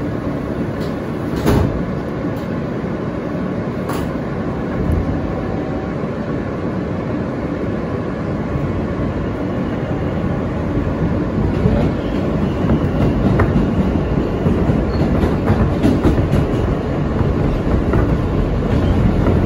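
R160A subway car heard from inside while riding: steady rail running noise with wheels clicking over the track, growing louder from about halfway through. A couple of sharp knocks come in the first few seconds.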